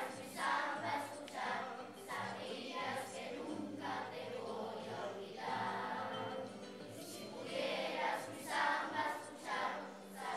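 Children's choir singing a samba song.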